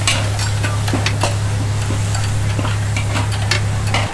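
Steel meat hooks clicking and clinking against the wire rack and rim of a clay jar charcoal oven as the pork strips are handled, over a steady low hum.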